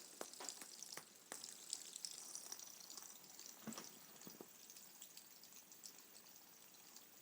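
Near silence: a few faint scattered clicks over a soft hiss.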